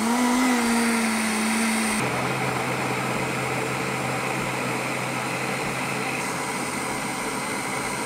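Blender motor running while mixing cake batter. It is just reaching speed at the start, drops to a lower pitch about two seconds in, and then runs steadily.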